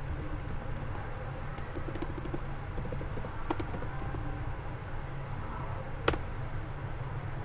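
Typing on a computer keyboard: a run of quick keystrokes, then one sharper key press about six seconds in.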